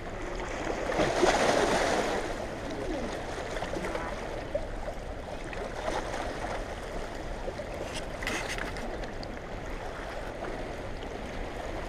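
Fast-flowing tailrace water below a dam's release gates, heard as a steady rushing wash that swells louder for about a second near the start.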